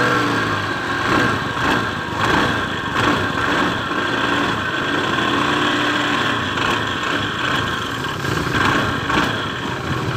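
Honda Beat eSP scooter's single-cylinder engine and CVT running with the throttle opened a little, swelling in loudness several times. The transmission gives the rough (kasar) sound that shows when the throttle is opened, traced on teardown to worn rollers and roller housing in the drive pulley and a worn drive belt.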